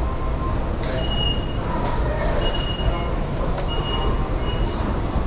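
Subway station ambience: a steady low rumble with the hubbub of a concourse, broken by several short high electronic beeps and a few light clicks.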